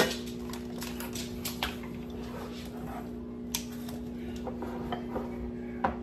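Scattered clinks and knocks of dishes, containers and utensils being set down and handled on a kitchen counter, a few sharp clinks spread through, over a steady hum.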